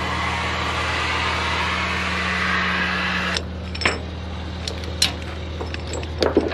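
Engine idling steadily, with a loud hissing rush for the first three seconds or so that cuts off suddenly, followed by a few sharp clicks and clinks.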